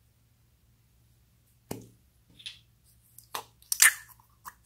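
Blue slime being worked out of its small clear plastic cup: a sharp click about a second and a half in, then a quick cluster of clicks and wet pops, loudest about four seconds in.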